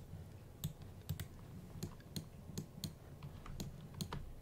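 Computer keyboard keys and mouse buttons clicking irregularly, about a dozen faint, sharp clicks.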